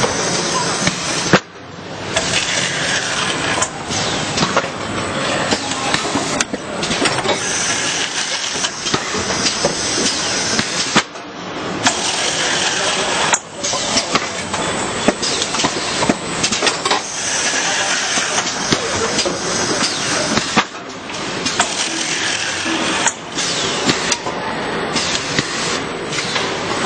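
Automatic carton packing-line machinery running: steady mechanical noise with frequent clicks and knocks, and a few short drops in level.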